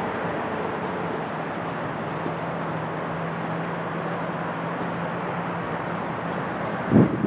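Steady outdoor background noise with a low, even engine drone through most of it, and a short loud thump near the end.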